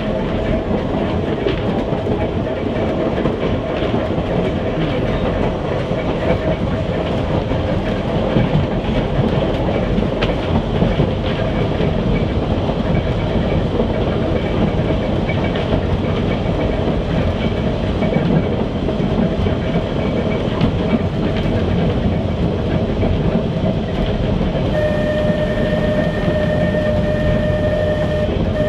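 Manx Electric Railway vestibuled saloon car No.6 running along the line, heard inside its wooden saloon: a steady running rumble with wheels clicking over the rail joints and the body rattling. About 25 seconds in, a steady high tone comes in and holds for about four seconds.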